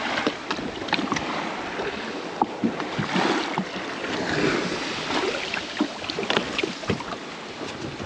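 Small waves lapping and slapping irregularly against the side of a small boat's hull, with light wind on the microphone.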